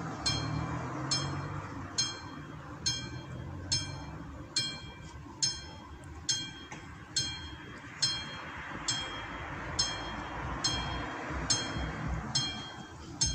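Classic mechanical bell of an AŽD 71 level-crossing signal striking steadily, a little under once a second, each stroke ringing on. It is the crossing's warning that a train is approaching.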